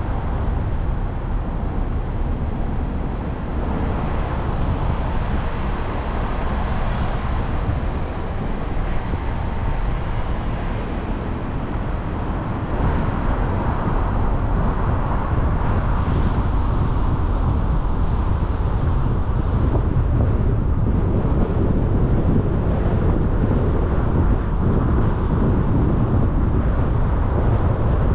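Car driving along a road: steady rumble of tyre and wind noise, getting a little louder about halfway through.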